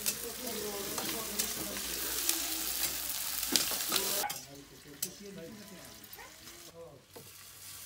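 Onions and spices sizzling in hot oil in a steel karahi, stirred with a spatula that scrapes and clicks against the pan. About four seconds in the sizzle drops away suddenly to a much quieter frying hiss.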